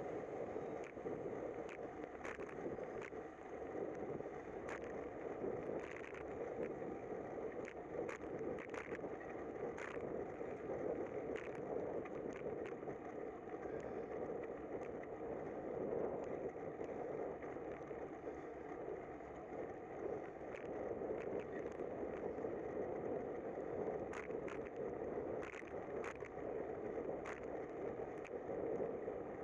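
Steady wind and tyre noise of a bicycle riding on a wet street, heard through a bike-mounted camera, with frequent short sharp ticks scattered throughout.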